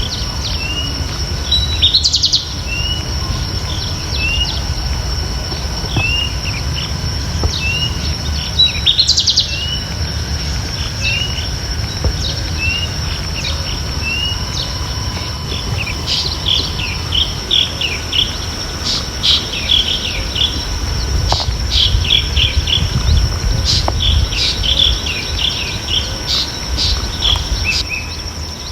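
Birds chirping outdoors. One bird repeats a short rising chirp roughly every second, with two quick bursts of notes about 2 and 9 seconds in. From about halfway, several birds chirp busily together, over a steady high-pitched whine and a low rumble.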